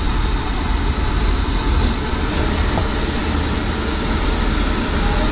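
Steady low rumble of a car heard from inside the cabin, engine and road noise with no distinct events.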